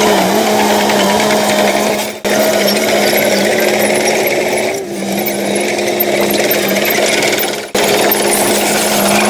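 Heavy diesel earthmoving machinery running at a steady pitch with a constant drone. It drops away sharply twice, about two and seven and a half seconds in.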